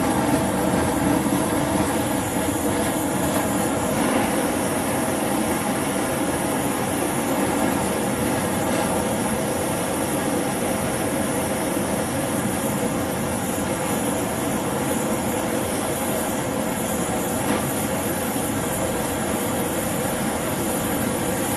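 High-temperature LPG/propane torch burning steadily with a constant rushing flame noise while it heats a joint for silver soldering.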